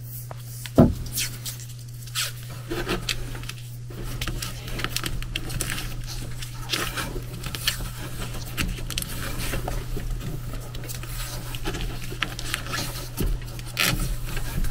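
Electrical tape being pulled off the roll and wound around a suction line temperature sensor on a copper refrigerant line, a run of short rips and crackles. One sharp knock about a second in.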